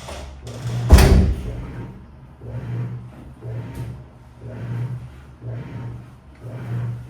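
Washing machine running a wash cycle: a steady low motor hum with a rhythmic swish about once a second as the drum turns the load. There is a loud thump about a second in.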